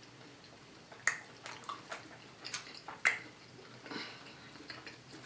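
Close-miked chewing of steak: irregular wet mouth clicks and smacks, several every second or so.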